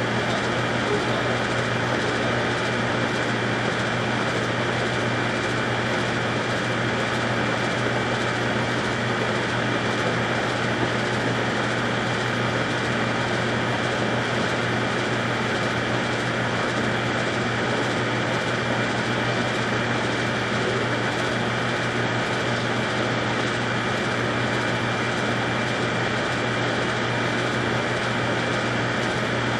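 High-pressure sewer jetter running steadily, its engine and pump giving a constant hum with a steady high whine.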